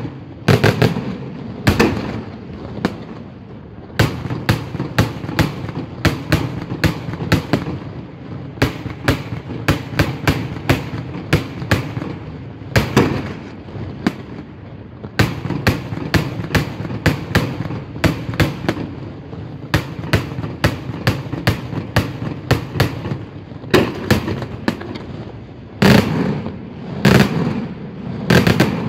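Daytime fireworks display: aerial shells and salutes bursting overhead in a continuous, irregular barrage of sharp bangs, several a second, with a louder cluster of bursts near the end.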